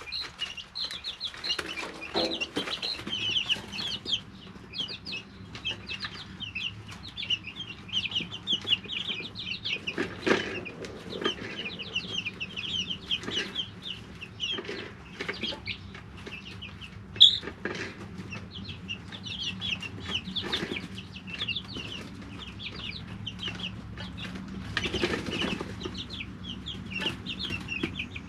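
A brood of three-week-old chicks peeping continuously in short, high, rapid calls, with occasional brief rustles and one sharp click about two-thirds of the way in, over a low steady hum.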